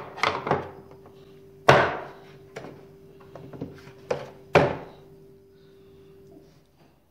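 Screwdrivers and their moulded plastic case from a Kingchrome screwdriver set knocking and clacking as they are handled: about eight sharp knocks, the loudest about two seconds in.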